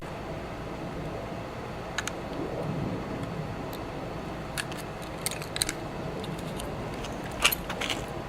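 Scattered light clicks and clinks of small tools or pieces being handled, over a steady low background hum.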